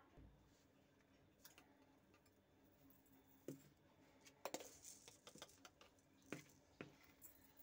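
Near silence broken by a handful of faint clinks and taps from a steel spoon and glass spice jars handled over a steel mixing bowl while seasoning is sprinkled in. The clearest taps come just past halfway.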